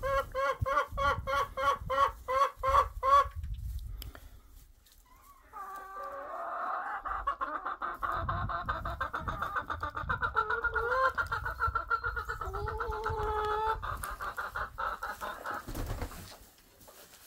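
Hens clucking: a quick run of short clucks, about four a second, for the first three seconds, then after a brief lull several hens clucking and squawking together for about ten seconds.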